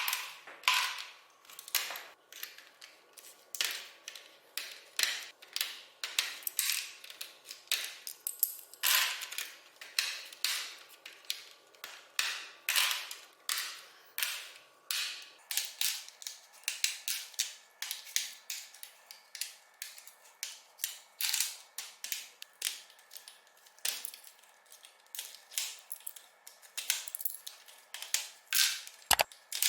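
Plastic parts of a mechanical keyboard being handled: a long, irregular run of sharp clicks and snaps, about two to three a second.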